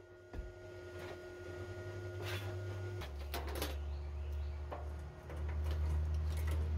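Light metal clicks and knocks as steel parts are handled inside a grill box, over a low steady hum that comes in about three seconds in and gets louder about two seconds later.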